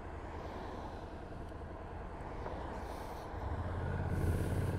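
Motorcycle engine running with a low steady hum that grows louder about three seconds in.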